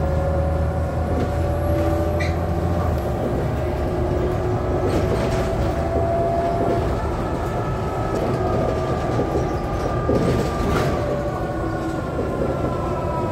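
Inside a BredaMenarinibus Avancity city bus on the move: the drivetrain's whine drifts slowly up and down in pitch with speed over the running noise. Brief clatters come about five and ten seconds in.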